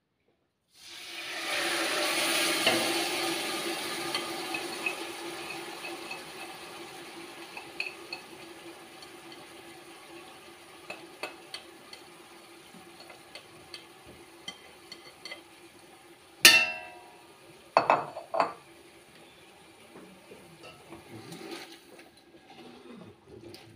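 Food sizzling in a hot pot, loudest about two seconds in and slowly dying down, with small clinks of utensils. A loud metal clank about sixteen seconds in, then two more knocks shortly after.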